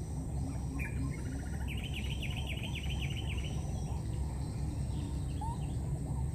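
Outdoor ambience of a steady low rumble and a constant high whine, over which a small bird calls once and then gives a rapid trill of about a dozen quick falling notes, starting nearly two seconds in and lasting under two seconds.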